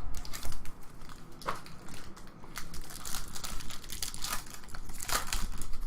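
Crinkling and rustling of trading-card pack packaging being handled and torn open, with irregular crackly scrapes.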